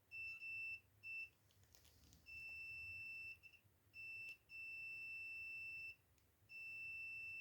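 Multimeter continuity beeper sounding in a steady high beep as the probes make and lose contact on the pump motor's wires. Two short beeps come first, then longer held ones, and the last is held on. The beep signals a closed circuit with near-zero resistance, a good connection.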